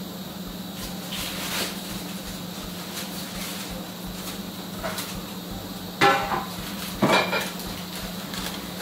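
A metal oven baking tray being handled, clanking twice with a brief ring, about six and seven seconds in. There are lighter knocks before it, over a steady low hum.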